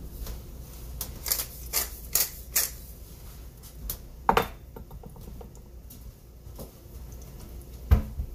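Kitchen clatter as black pepper goes into the sauce: a quick run of four sharp clicks about half a second apart, then two louder knocks a few seconds apart.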